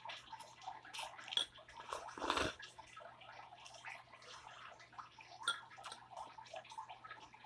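Wet mouth sounds of someone eating hot noodles: slurping and chewing with many small clicks, and one louder slurp a little over two seconds in, over a faint steady hum.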